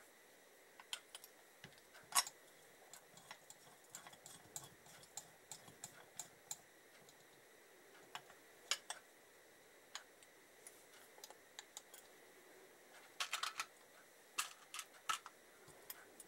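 Light, irregular clicks and clinks of metal motorcycle parts being handled: an aluminium footrest hanger and brake master cylinder knocked together as they are lined up for fitting. The sharpest knock comes about two seconds in, and a quick run of clicks comes near the end.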